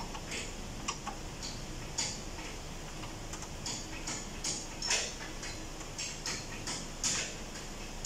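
Light, sharp clicks at an uneven pace of roughly two a second, over a steady low background hum.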